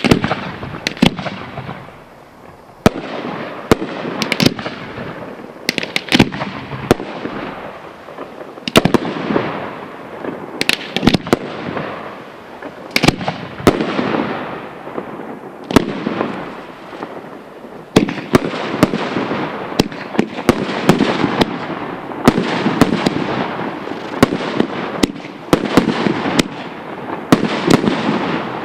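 Aerial fireworks shells and candles bursting in quick, irregular succession: many sharp bangs, each trailing off into a rolling echo and crackle.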